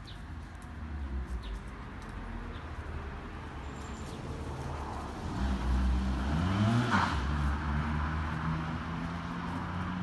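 A motor vehicle going past, its engine hum growing louder to a peak about seven seconds in and then easing off.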